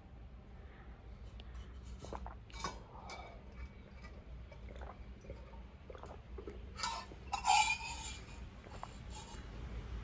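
Light clinks and handling knocks of small hard objects, with a louder clatter about seven and a half seconds in.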